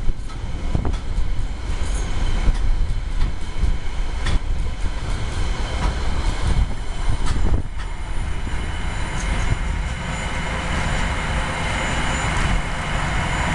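Freight train of container flatcars rolling past, wheels clicking over rail joints with a steady rumble. About eight seconds in, the last wagon goes by, the clicking stops, and the train's rolling noise with a faint high whine fades slightly as it moves away.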